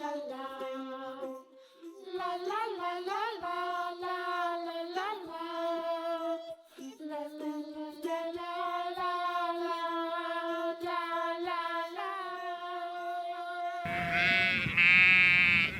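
Children's background song with long held, wordless melody notes, then a loud sheep bleat sound effect near the end.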